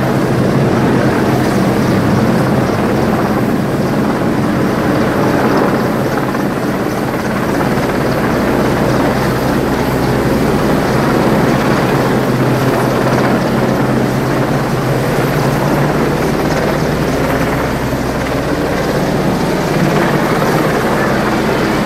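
Large helicopter flying low overhead, its rotor and engines running steadily and loudly.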